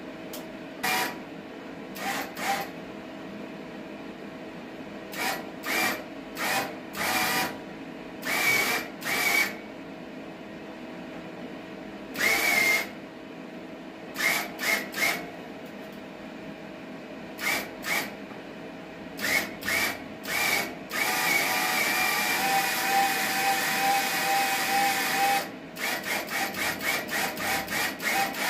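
Einhell BT-GW 150 MIG welder's wire feed motor whirring in short bursts as the torch trigger is pressed to feed new wire through. It then runs continuously for about four seconds and ends in a quick string of short pulses, over a steady hum. The feed speed cannot be regulated, which the owner traces to a broken potentiometer.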